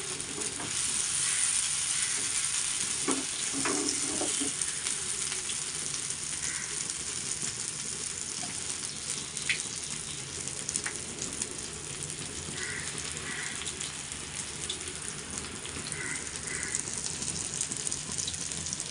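Small masala-coated fish shallow-frying in a little oil in a flat pan over a low flame, a steady sizzle, with a few short clicks along the way.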